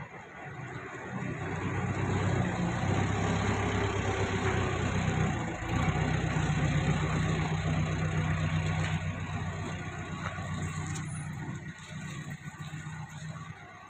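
TCM forklift's engine running as it drives a loaded pallet, a steady low hum that dips briefly about six seconds in, then picks up again and fades near the end as the forklift moves away.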